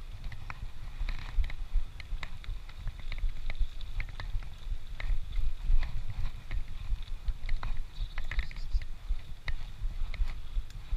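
Wind buffeting the microphone of a camera on a moving bicycle, a steady low rumble, with scattered light ticks and clicks throughout.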